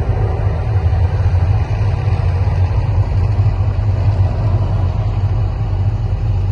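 Loud, steady deep rumble of the volcano show's eruption sound effects.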